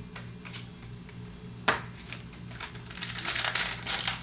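A sharp click about halfway through, then from about three seconds in a fast run of crinkling: a foil trading-card pack wrapper being torn open and handled.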